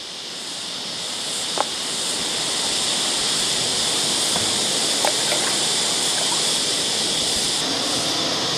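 Creek water running over rocks, a steady rush that grows louder over the first couple of seconds and then holds, with a few faint clicks.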